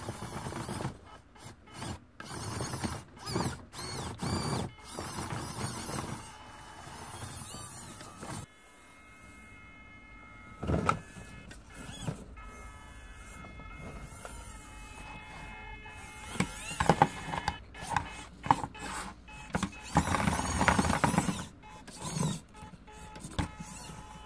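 Small electric drive motor and gears of an FTX Ibex micro RC crawler whining in stops and starts as it crawls slowly, with knocks and scrapes from its tyres and chassis on cardboard boxes. The loudest bursts come near the end.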